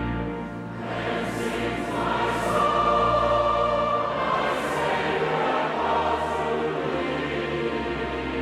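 A choir or congregation singing a hymn together, with held low notes sustaining underneath.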